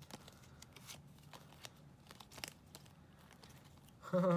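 Glossy oracle cards handled and fanned through the hands, with scattered short clicks and slides of card stock. Near the end comes a brief voice sound, a short hum.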